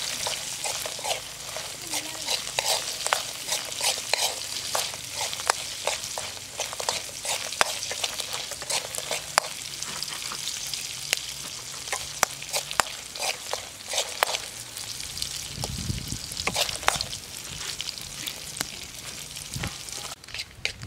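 Cybister diving beetles frying in a steel wok, a steady sizzle full of many sharp pops and clicks, with a metal spatula stirring them in the pan.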